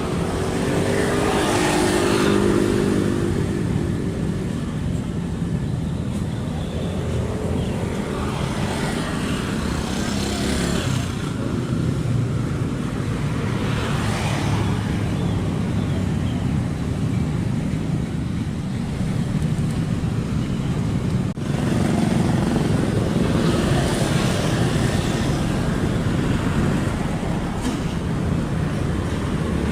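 Kobelco SK75 excavator's diesel engine running steadily under working load, with a pitched drone rising out of it near the start and again about eight seconds in. Brief rushing swells of noise come at intervals, about four times.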